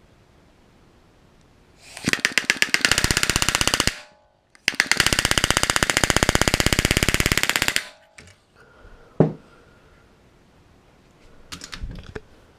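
Pneumatic rivet gun hammering universal-head aluminium rivets into an RV-7 horizontal stabilizer, in two rapid bursts of about two and three seconds, then a single sharp click.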